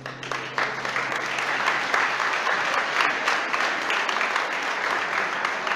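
A room full of guests applauding, the clapping building up quickly in the first second and then holding steady. A low held note dies away under it in the first couple of seconds.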